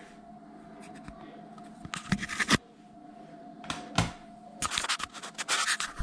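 Scratching and scraping handling noises in short bursts about two seconds in, around four seconds, and again near the end, over a faint steady hum.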